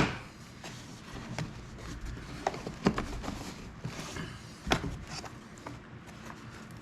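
Loose wooden beehive frame parts being handled and set down, giving a few scattered light knocks of wood on wood with rubbing and rustling between them.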